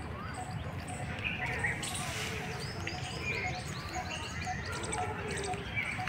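Several birds chirping and calling over one another, many short high notes repeated, over a steady low background rumble, with a brief hiss about two seconds in.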